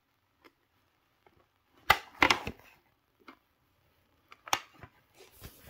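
Handling noise on a tabletop: a few sharp knocks and clatters about two seconds in and again about four and a half seconds in, with light rustling near the end, as small objects are set down and picked up.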